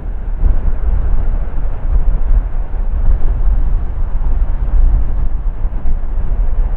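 Airbus A380-861's four Engine Alliance GP7200 turbofan engines at high power on the runway, a loud, steady deep rumble.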